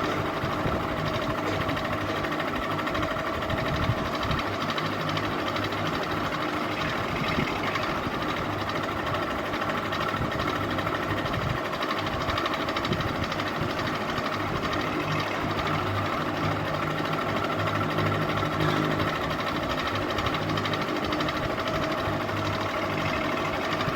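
Ceiling fan running at a steady speed: a constant motor hum over an even whir.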